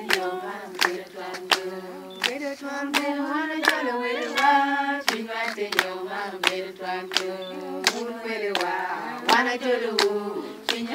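A group of women singing together, with a steady hand-clap keeping the beat about every three-quarters of a second.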